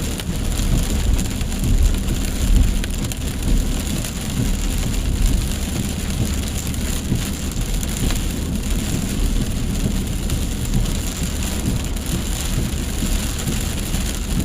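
Steady heavy rain with a continuous low rumble underneath.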